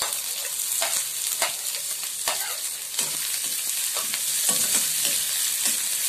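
Chopped onions sizzling in hot oil with cumin seeds in a kadhai, with a steady hiss. A steel ladle scrapes and knocks against the pan every half second or so as the onions are stirred.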